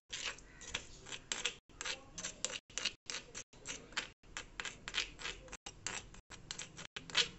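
A steel spoon scraping and stirring thick masala paste around the inside of a stone cooking pot, in short rasping strokes, a few a second, with one louder scrape near the end.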